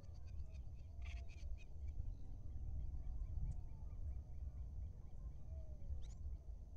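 Faint birds calling over a low wind rumble on the microphone: short rising and falling whistles, a run of small chirps in the middle, and a few sharper high calls.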